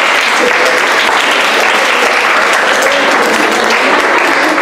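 Loud, steady applause from an audience: many hands clapping at once.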